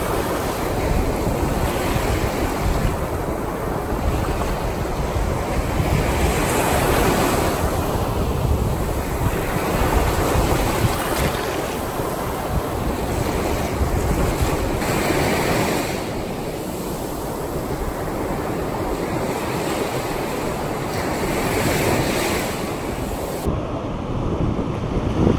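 Ocean surf breaking and washing up the sand, swelling and easing with each wave, with wind buffeting the microphone.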